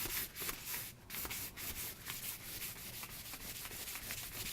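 Fine 1000-grit sandpaper rubbed over a wooden saw handle in quick back-and-forth strokes, several a second, each a short dry hiss.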